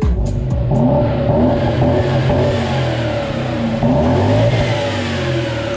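Jaguar XJ saloon's engine revving, its pitch rising and falling repeatedly over a steady whine.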